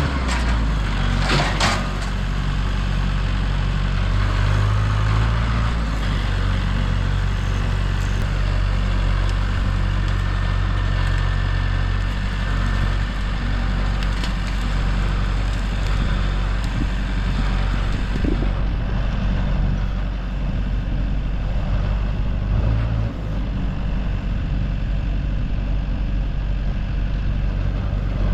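Large engine running steadily at low speed, its pitch shifting slightly a few times, with a couple of sharp cracks about a second and a half in.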